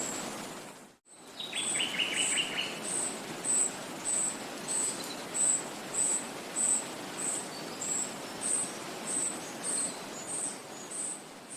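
Forest ambience: a steady background rush with a high, even chirp repeating about twice a second, and a short, quick run of bird notes about a second and a half in. The sound dips briefly to silence about a second in and cuts off suddenly at the end.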